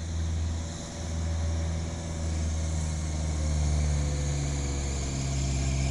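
Heavy vehicle engine running steadily, a low even drone.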